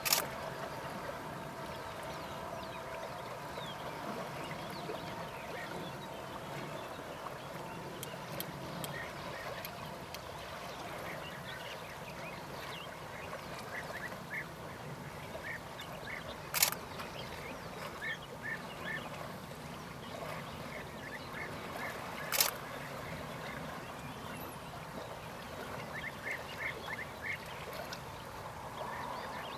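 European bee-eaters calling: short liquid notes repeated in quick bursts of several, coming more often in the second half. A couple of sharp clicks stand out, one a little past halfway and another some seconds later.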